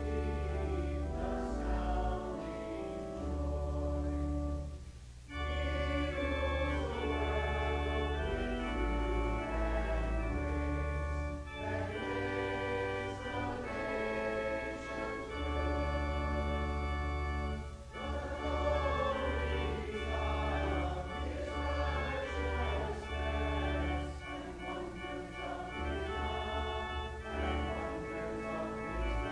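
Church organ accompanying a congregation singing a hymn, sustained chords over low bass notes, with a short break between phrases about five seconds in.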